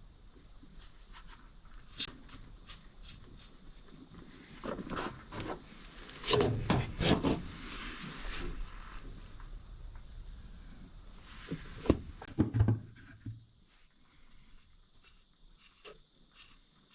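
Steady high-pitched insect trill outdoors, with scattered knocks and clicks of hands and tools at work, loudest about halfway through and again near twelve seconds in. The insect sound cuts off suddenly after that, leaving only faint clicks.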